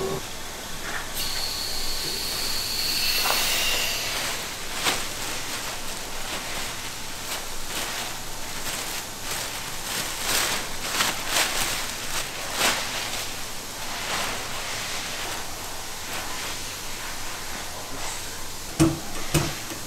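Clear plastic sheeting rustling and crinkling as it is pulled and smoothed over a stack of extruded clay logs, with a few sharp knocks near the end.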